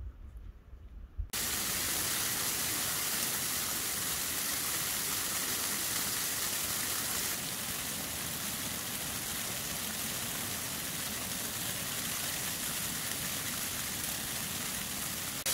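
Snow shower falling on the tent and ground: a steady hiss that starts suddenly just over a second in and eases slightly about seven seconds in.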